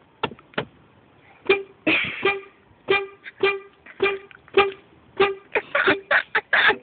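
Toy horn honking in short, same-pitched beeps, about a dozen, pressed over and over in an uneven rhythm; two sharp clicks come just before the honking starts.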